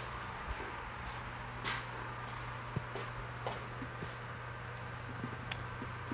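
A high chirp repeating evenly, about two and a half times a second, over a low steady hum. A few faint knocks and a sharp plastic click come right at the end.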